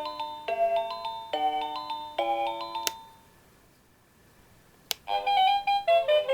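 Seiko NR435P quartz alarm clock's electronic melody alarm playing a tune in clean chiming notes. About three seconds in, a sharp click cuts it off; after two seconds of near silence another click sounds and the next melody starts.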